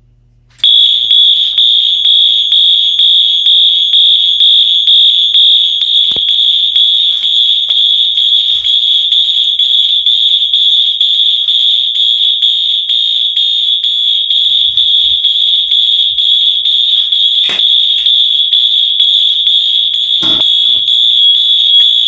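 Wheelock MT and Wheelock RS fire alarm horn strobes sounding a loud, high-pitched horn tone, the MT set to March Time horn, after a pull station was pulled. The tone starts about half a second in and cuts off abruptly at the end when the panel is silenced.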